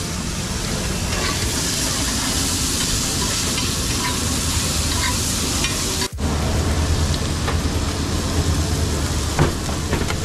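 Hot oil sizzling steadily as food deep-fries in a kadhai, then, after a brief break about six seconds in, paneer frying on a flat pan, with a steady low hum underneath.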